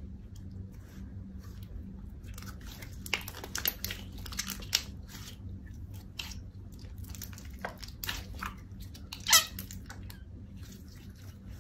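Hands kneading, stretching and squeezing a soft, sticky red slime: a run of short, wet crackles and squelches, with one louder squelch about nine seconds in.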